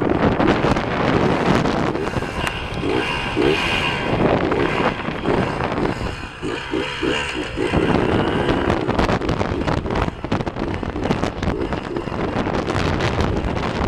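Kawasaki KDX 80 two-stroke dirt bike engine revving up and down while riding, its pitch rising and falling a few times. Wind on the microphone and knocks from the bike bouncing over rocky ground run throughout.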